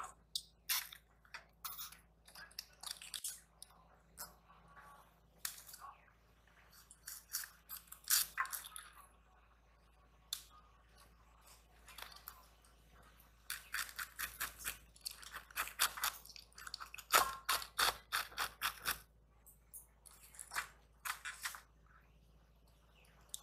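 Raw cabbage being cut and broken apart by hand: crisp crunching and snapping of the leaves, scattered at first, then in quick runs of strokes around the middle.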